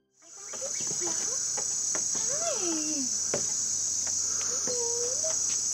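Steady high-pitched insect chorus fading in, with scattered short clicks and a few low calls that glide in pitch, one falling about two and a half seconds in and one rising near five seconds.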